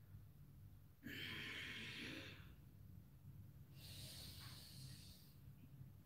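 A man's deliberate breaths, each about a second and a half long, one about a second in and another about four seconds in, paced with the arching and rounding of the spine in cat-cow pose.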